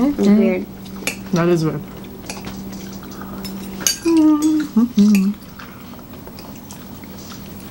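Forks clinking and scraping against bowls and plates while people eat: a run of short, sharp clinks.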